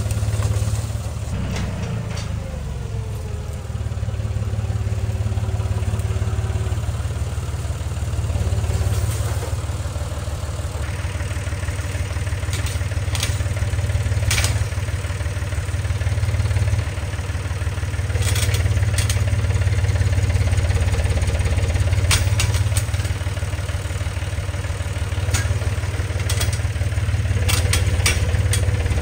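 John Deere 5300 tractor's diesel engine running under load as it pulls shrubs out of the ground, its pitch dropping about two seconds in. Scattered sharp clicks and snaps are heard over the engine.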